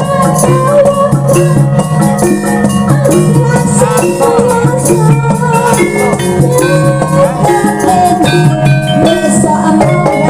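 Live jaranan accompaniment music: an East Javanese gamelan-style ensemble of drums and pitched percussion playing a steady, dense pattern under a wavering melodic line.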